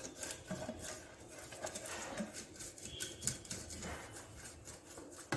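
Silicone pastry brush spreading oil around the inside of a non-stick cake pan: a quick, irregular run of soft brush strokes, taps and scrapes against the metal.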